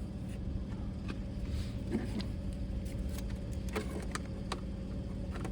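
Scattered light clicks and taps of hand tools and plastic parts being handled, over a steady low hum.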